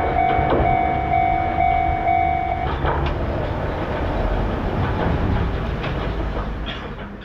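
Japanese level-crossing warning bell ringing its repeated kan-kan tone over the steady rumble and wheel clatter of a passing train. The bell stops about a third of the way in, and the train keeps rolling by, fading slightly near the end.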